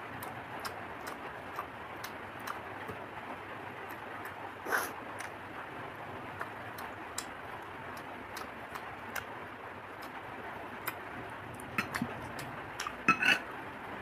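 A person eating: small scattered clicks and smacks of chewing and of handling food, with a louder crunch or clatter about five seconds in and a few more near the end, over a steady hiss.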